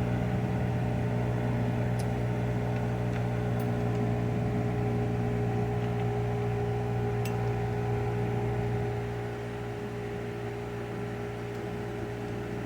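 A steady machine hum at one constant pitch, dropping somewhat in level about nine seconds in, with a few faint clicks.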